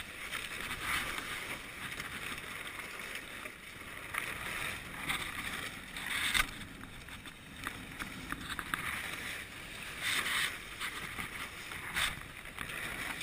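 Water rushing and splashing along the hull of a wooden GP14 sailing dinghy under way, surging louder every second or two, with a few sharp slaps.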